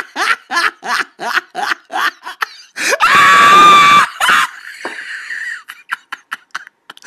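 A person laughing in quick repeated bursts, then a loud high-pitched scream lasting about a second, about three seconds in, followed by a few short broken bursts of laughter.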